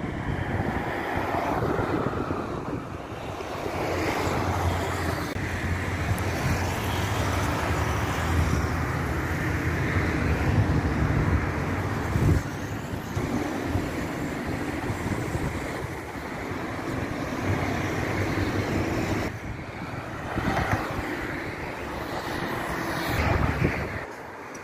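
Road traffic noise: steady tyre and wind noise from a moving car, with other vehicles going by, swelling and easing.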